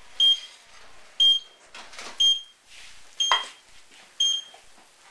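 Cooking timer beeping to signal the end of the cooking time: a short, high beep about once a second, five times.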